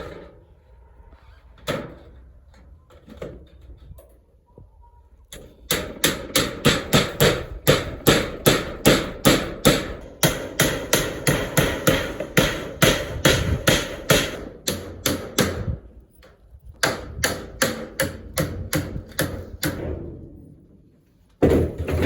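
A hammer striking in a quick, steady run of about three blows a second, starting about five seconds in, with a short pause and then a further run of blows, as the corrugated zinc roofing sheets are fixed in place.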